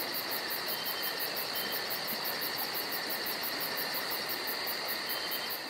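Insects trilling steadily, with a rapid even pulsing of about five chirps a second, over a steady hiss.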